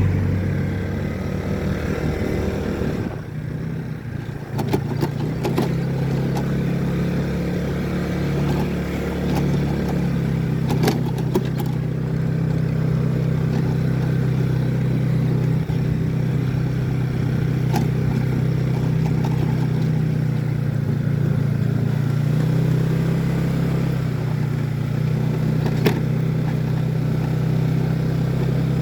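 A motor vehicle's engine running steadily, with a few light knocks.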